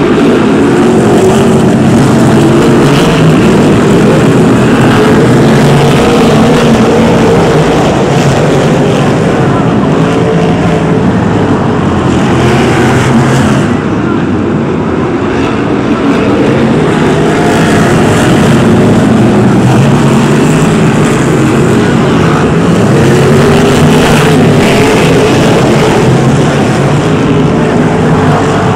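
A pack of BriSCA F1 stock cars racing, their V8 engines revving hard, the pitch rising and falling as they lap. The sound dips briefly about halfway through.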